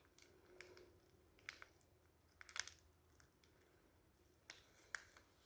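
Near silence broken by a few faint, sharp clicks and small crinkles, the loudest about halfway through: small handling noises.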